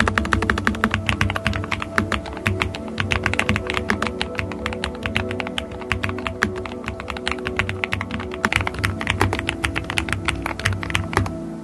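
Rapid typing on a low-profile mechanical keyboard with Kailh POM switches, a fast run of sharp key clicks that stops shortly before the end, over background music.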